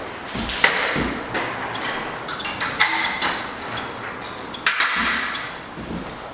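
Vinyl mini blind headrail snapping into its mounting brackets: a few sharp clicks among scraping and rattling as it is pushed into place.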